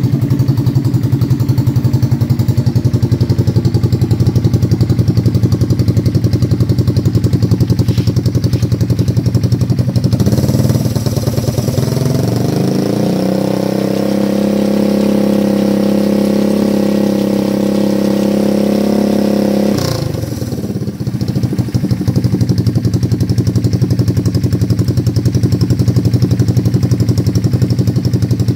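Honda ATC's single-cylinder engine idling with a fast, even beat. About ten seconds in the revs climb over a few seconds, hold steady for about six seconds, then drop sharply back to idle.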